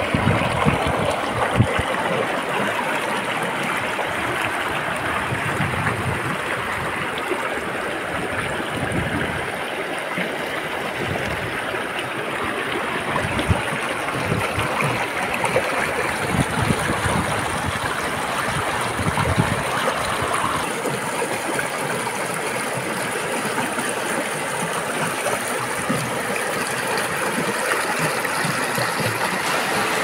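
Shallow stream rushing and splashing over rocks, a steady, even rush of water.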